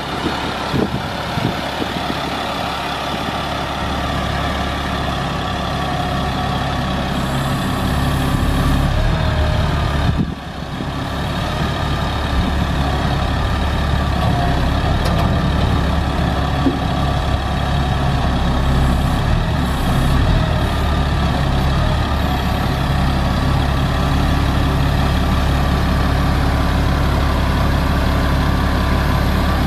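Caterpillar 3126 six-cylinder diesel engine of a GMC C7500 bucket truck running steadily, with a brief drop in sound about ten seconds in.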